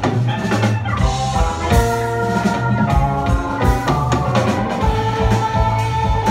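Live rock band playing an instrumental passage: electric guitars holding and changing notes over a steady drum-kit beat.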